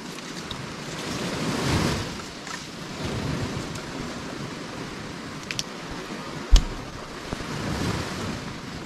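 Surf washing in on a beach with wind, swelling louder twice as waves come in, with one sharp knock partway through.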